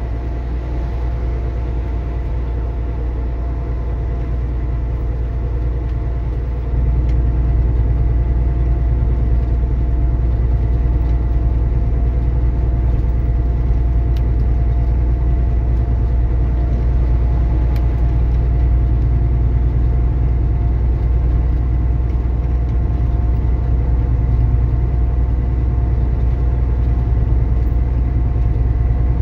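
Semi truck's diesel engine and road noise heard from inside the cab while driving on the highway: a steady low drone that gets louder about seven seconds in.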